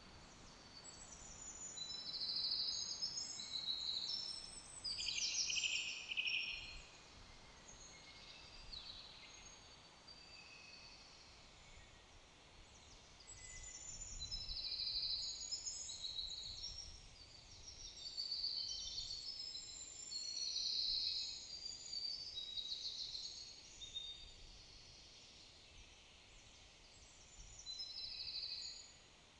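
Woodland songbirds singing: quick, high-pitched chirps and trills in clusters with short lulls between, over a faint low rumble.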